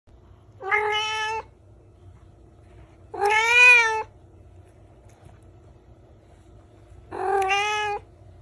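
Domestic cat meowing three times, each call about a second long, the middle one loudest. A faint steady hum runs underneath.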